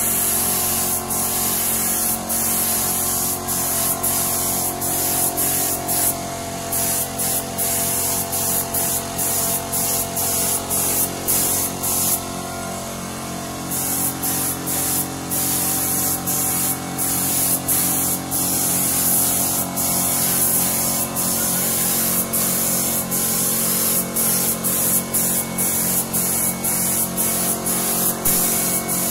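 Gravity-feed air spray gun hissing as it sprays paint onto a steel frame, the hiss broken by many brief pauses as the trigger is let off and pressed again. A steady low hum runs underneath.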